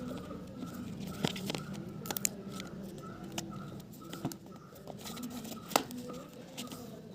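Smartwatch packaging being torn and handled, with scattered sharp clicks and rustles; the loudest click comes about six seconds in.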